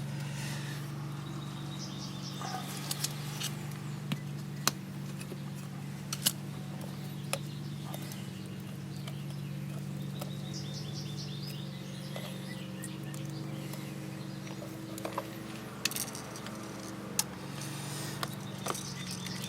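Small birds chirping now and then over a steady low hum, with a few scattered sharp clicks.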